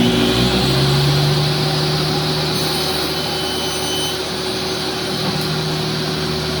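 Electric motor of a woodworking shop machine running steadily at speed, a constant hum over a rushing noise, with a slight shift in its lower tones about half a second in.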